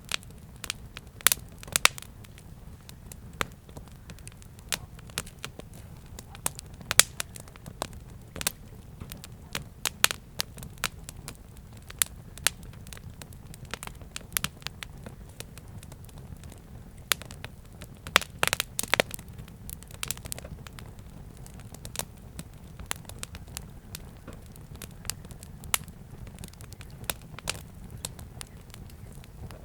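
Campfire burning: irregular sharp crackles and pops of burning wood over a steady low rumble of the flames, with a quick flurry of pops about two-thirds of the way through.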